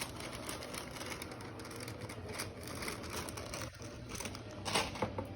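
Rustling and light clicking of things being handled, with a louder rustle about five seconds in.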